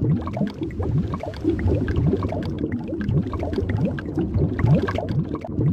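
Bubbling water, as in an underwater sound effect: a dense stream of bubbles gurgling, many quick rising blips over a steady low rumble.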